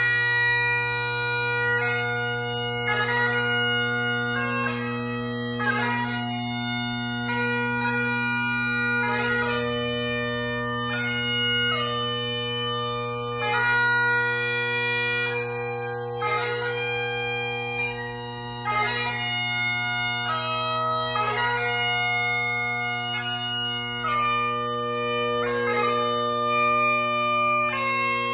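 Great Highland bagpipe played solo: the drones hold a steady low chord under the chanter's melody. The melody moves through held notes of a second or two, each change broken by quick grace notes.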